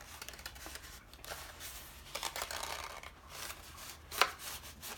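Paper petals rustling and crinkling as they are handled, shaped and pressed together, with one sharper tap about four seconds in.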